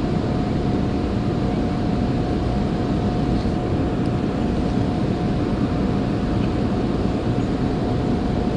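Steady rushing roar of water pouring through a dam, with a thin steady hum running under it.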